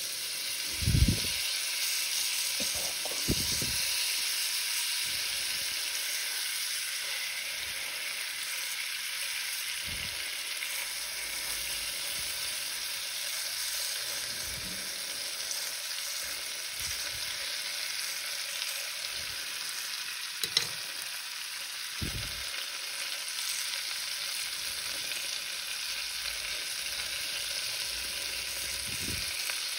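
Flour-dredged cod fillets frying in melted butter and lemon juice in a nonstick pan, a steady sizzle. A few brief knocks come as a wooden spatula moves the fillets.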